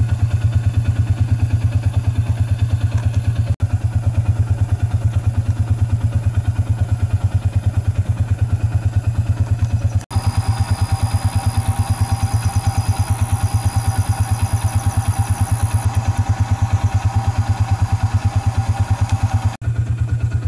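An engine idling steadily with an even, rapid chug, cut off for an instant three times.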